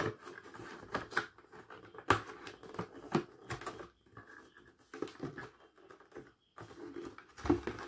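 Pink cardboard gift box being folded and fitted together by hand: irregular light taps, scrapes and creases of the card, with scattered small clicks.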